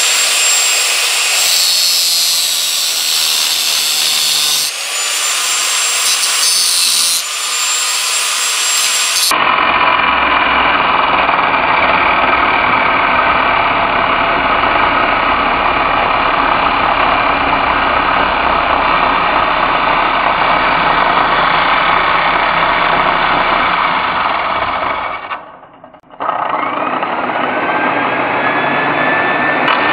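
A power tool cutting a piece of steel stock, running steadily with a couple of brief dips in the first seconds. Near the end it stops for about a second, then starts again with a rising whine as the motor spins back up.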